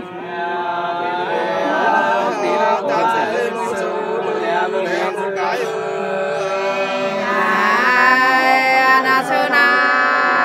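Nùng women singing sli, a folk song of long held notes that slide between pitches, getting somewhat louder about eight seconds in.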